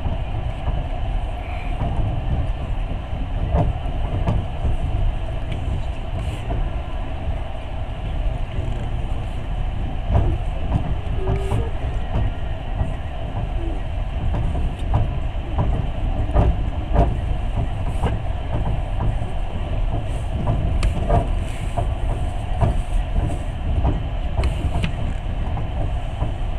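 Passenger train running, heard from inside the carriage: a steady low rumble with irregular clicks and knocks throughout.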